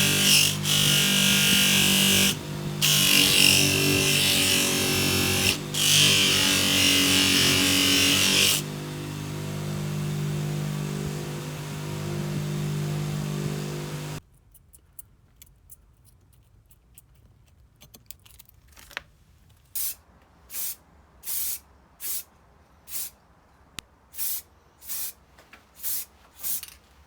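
A power polishing tool working steel: a loud, rough hiss over a steady motor hum, broken by short pauses, then running lighter before stopping abruptly. After a quiet spell come faint hand-rubbing strokes, about one every 0.7 s.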